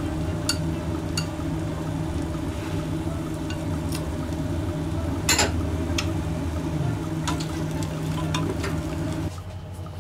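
Shishito peppers and chikuwa sizzling in a sauce-glazed frying pan, with a few sharp clicks of chopsticks against the pan (the loudest about five seconds in) over a steady low hum. The sizzle and hum stop suddenly near the end.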